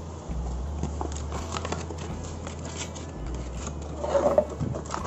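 Sandpaper being handled against a Honda RS125 Fi's plastic headlight cowling, a sheet rustling and scraping by hand, with louder scrubbing strokes about four seconds in as the sanding gets under way.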